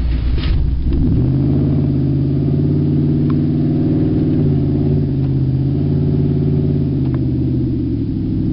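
Nissan Titan's 5.6-litre V8 running with no exhaust fitted, heard from inside the cab while driving. It makes a loud, steady drone that steps up in pitch about a second in and drops back lower near the end.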